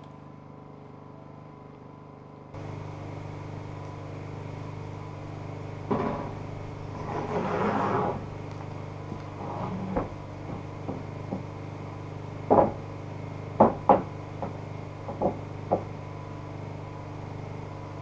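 Green-sawn shiplap floorboard being fitted into a wooden shed floor: the board scrapes as it slides into place, then several sharp wooden knocks as it is tapped home, over a steady low hum that starts a few seconds in.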